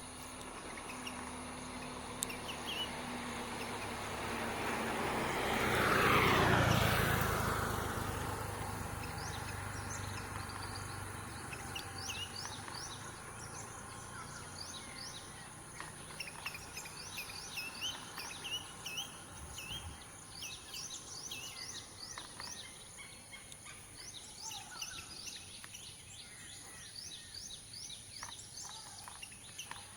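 Outdoor ambience with birds chirping: short, high, quickly repeated calls, thickest in the second half. A passing vehicle swells and falls in pitch about six seconds in, the loudest sound here, over a steady high hiss.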